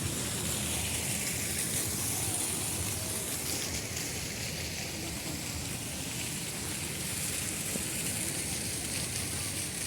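Steady hiss of running water from fountains, without change.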